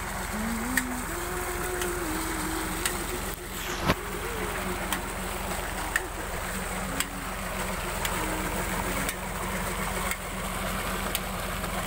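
Tractor diesel engine running steadily, driving a shaft-driven water pump, with water gushing from the pump's outlet pipe into a brick tank and channel. A sharp tick recurs about once a second.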